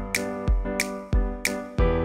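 Background music with a steady beat: a low thump alternating with a sharper, brighter hit, about three hits a second, over held chords.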